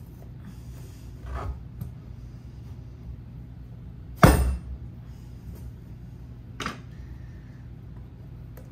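An acorn squash with a kitchen knife wedged in it slammed down onto a wooden cutting board to split the hard squash: one heavy thump about four seconds in, with lighter knocks of the knife and squash against the board about a second and a half in and again about six and a half seconds in.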